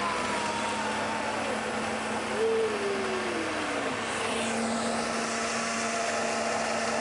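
Small electric food chopper running steadily, its blades grinding chillies, shallots and garlic into a spice paste.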